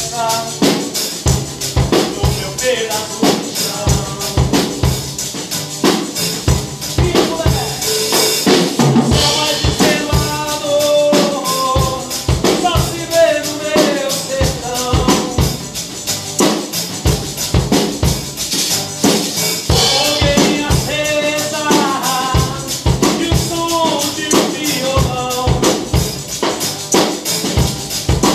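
A small band playing a song live on acoustic guitar and a drum kit with a hand shaker, and a voice singing the melody over a steady drum beat.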